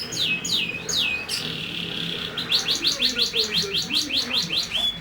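Lovebird singing: a few quick falling chirps, a short buzzy held note about a second and a half in, then a fast run of repeated falling chirps, about five a second.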